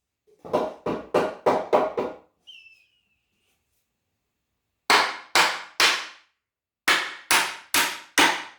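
Hammer driving nails into wooden framing boards: a quick run of about six blows, a pause, three more, then another steady run of blows about two a second near the end.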